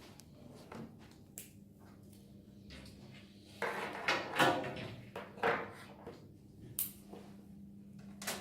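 Cat6 patch cords being handled and their RJ45 plugs pushed into sockets: scattered sharp clicks with a stretch of rustling and scraping in the middle.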